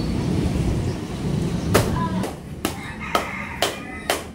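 Block ice being smashed with a heavy rod in a rubber tub: about five sharp strikes, roughly half a second apart, starting a little under two seconds in. They follow a low rumbling noise.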